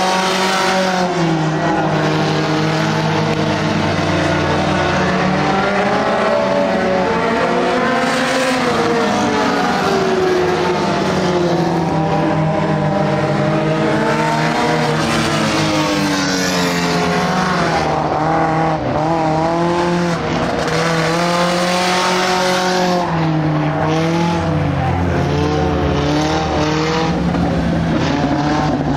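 Several dirt-track race cars running laps, their engines rising and falling in pitch as they throttle up down the straights and ease off through the turns.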